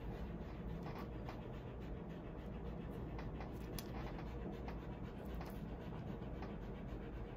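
Faint rustling and scattered small clicks from a dog being held and handled, with some panting, over a steady low room hum.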